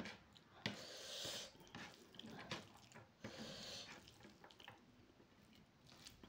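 Fingers mixing and squeezing rice with curry on a plate, giving soft wet squishing sounds, with a couple of sharp clicks near the start.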